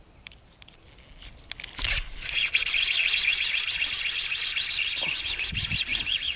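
A thump about two seconds in, then a fishing reel being cranked fast, a rapid whirring clatter that runs on steadily as a hooked bass is reeled in.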